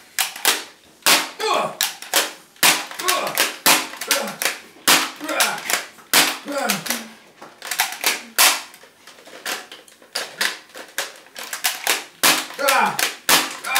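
A Nerf blaster fired over and over, sharp snapping shots about once a second, the darts hitting a person at close range. Short vocal yelps and grunts come between the shots.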